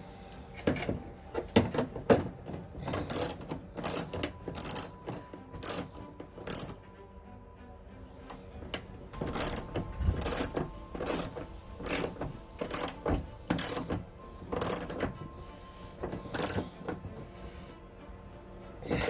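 Hand ratchet wrench clicking in repeated strokes as it runs a bolt in, with a short pause about halfway through.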